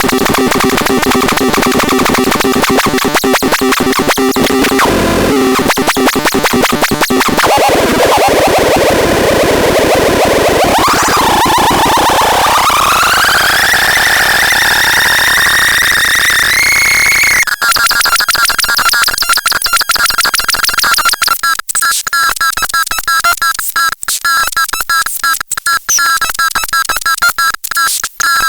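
Synthesizer playing harsh, noisy buzzing tones. About a third of the way in the pitch dips and then sweeps upward to a high held tone. After that it changes to a fast, choppy stuttering pattern.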